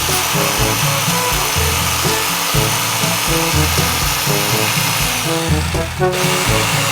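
Background music with a steady beat of short, low notes, laid over a continuous hissing machine noise that thins briefly about five and a half seconds in and comes back sharply.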